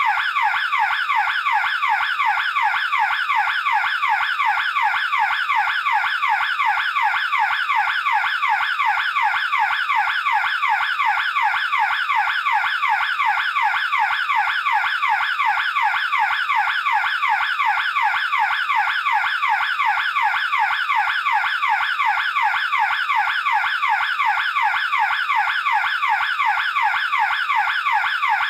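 Burglar alarm siren sounding without a break: a loud, fast-repeating sweep in pitch, several sweeps a second, at an even level.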